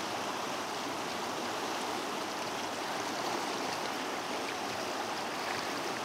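River water rushing steadily over a rocky bed in shallow rapids.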